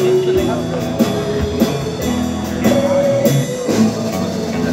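Live band playing: electric guitar notes over a drum kit keeping a steady beat.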